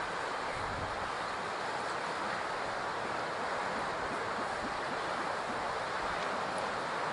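Steady, even wash of ocean surf with wind.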